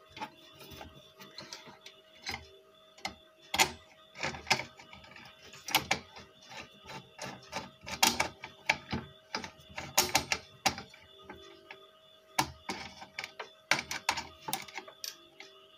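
Hands working inside the open metal case of a V-Guard Prime 1050 inverter: irregular clicks and knocks as the board and battery cable with its ring lug are fitted, over a faint steady hum.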